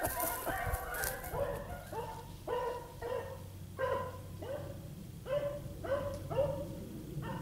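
Beagles baying while running a rabbit: a string of about a dozen short calls, each rising at its start, following one after another.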